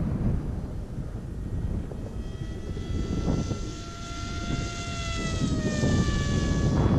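Electric motor and propeller of a Flybot Mini Race Wing whining overhead, running at about half throttle, on a 4S battery. The whine holds a steady pitch, then slides down about five seconds in as the wing passes. A low wind rumble buffets the microphone throughout.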